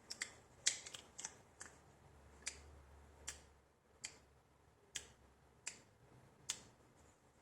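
Faint, sharp clicks of a Gerber Suspension NXT multitool being handled, its fold-out tools clicking as they are worked. Several clicks come close together in the first second and a half, then single clicks follow about every 0.8 s.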